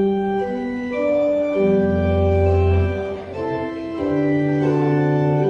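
Organ playing sustained chords of a slow hymn or prelude, starting abruptly and moving from chord to chord every second or so.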